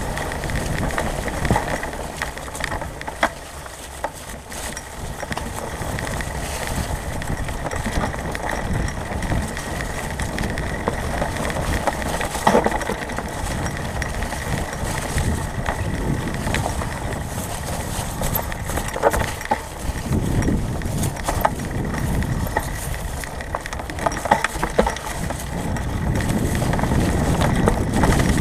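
Fat-tyre mountain bike rolling over a dirt trail covered in dry leaves: steady tyre noise with frequent rattles and clicks from the bike over bumps, picked up by a camera mounted on the bike. Wind rumble on the microphone grows near the end.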